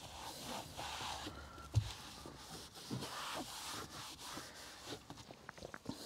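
Soft scrubbing of a detailing brush and microfiber towel over a car's dashboard trim, with light ticks and a low thump just before two seconds in.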